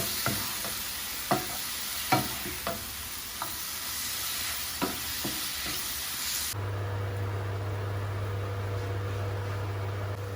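Liver and onion mixture sizzling in a frying pan while it is stirred, the spatula clacking against the pan about seven times. About six and a half seconds in, the sizzle cuts off suddenly and a steady low hum takes over.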